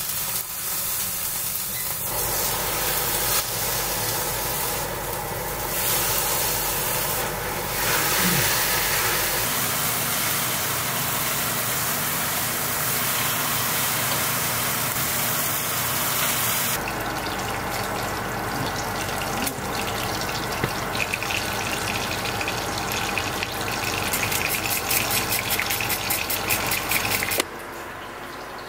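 Steady rushing, hissing kitchen noise from cooking at a gas stove. Its character changes abruptly a few times.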